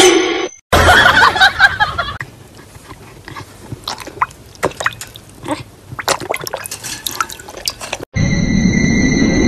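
A small dog lapping and splashing water in a bowl, with many short wet splashes and drips. About 8 seconds in, it cuts to a loud steady hiss with high steady tones over it.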